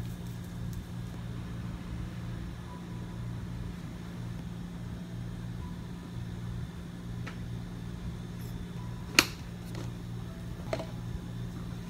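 Steady low hum of cafe equipment behind the counter, with a few light clicks and one sharp click about nine seconds in as a clear plastic cup is handled.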